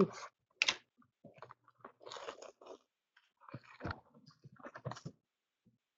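Plastic wrap crinkling and cardboard rustling as a sealed trading-card box is opened by hand, with a few sharp taps and clicks; the loudest is about half a second in.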